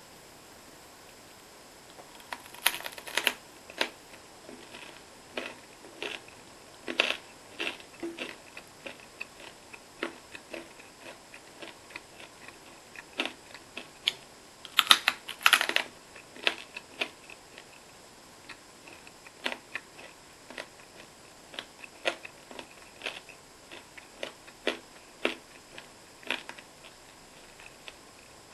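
Close-miked eating sounds: irregular crisp clicks and crunches of food being bitten, chewed and handled by hand, with a louder cluster about halfway through.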